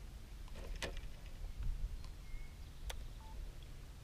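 Quiet outdoor ambience: a low steady rumble with a few faint clicks and two brief high chirps.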